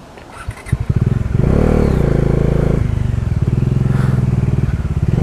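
Motorcycle engine starting about a second in, revving up once, then idling steadily.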